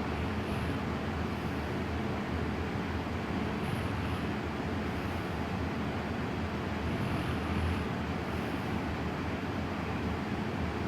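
A sleeping woman's slow breathing, faintly swelling every couple of seconds under a steady low rumbling noise.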